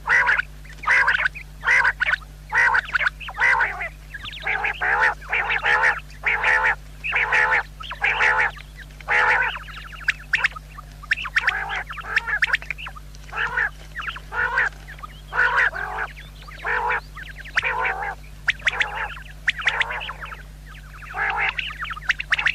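Common quail calling over and over: short, harsh, nasal calls, about one to two a second, with a couple of brief pauses. A faint steady low hum runs underneath.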